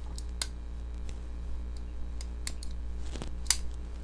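Benchmade Mini Presidio II AXIS-lock folding knife being opened and dropped shut: a string of sharp metallic clicks and snaps from the blade and lock, with a duller knock a little after three seconds in.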